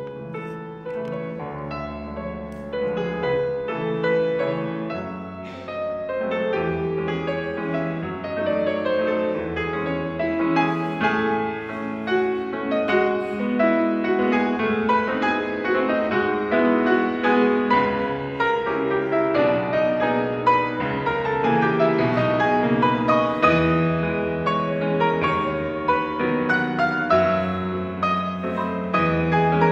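Grand piano played solo, a continuous flowing piece that builds gradually in loudness.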